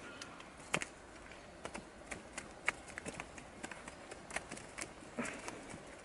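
Light, irregular clicks and taps, about three or four a second, from handling a stone tied on a length of paracord.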